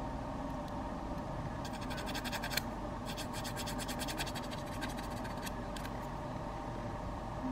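Sanding stick rubbed over the epoxy-putty legs of a small sculpted figure, rasping in quick back-and-forth strokes at about ten a second. It comes in two runs, a short one about two seconds in and a longer one from about three seconds in.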